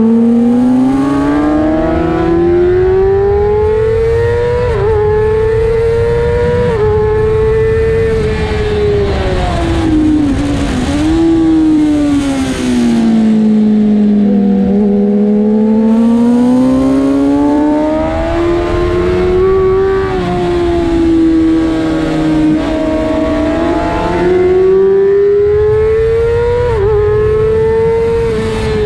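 600cc sport bike's engine at full race pace, its pitch climbing under acceleration and sinking as it slows for corners, with quick dips at several upshifts. Wind rush runs under the engine note.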